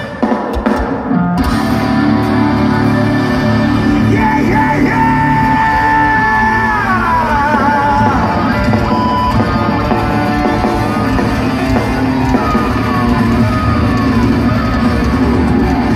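Live folk-metal band playing loudly through a festival PA: electric guitars, bass and drums with a melodic line and singing. There is a short break in the music just after the start, then the full band comes back in.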